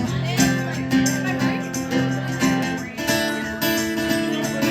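Live band playing an instrumental passage of a country song: strummed acoustic guitar over sustained low notes, with no singing.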